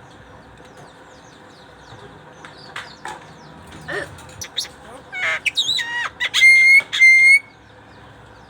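A pet jalak, a talking starling, giving scattered short chirps and clicks, then about five seconds in a run of loud whistles: a looping, gliding note followed by two held, steady whistled notes that stop sharply.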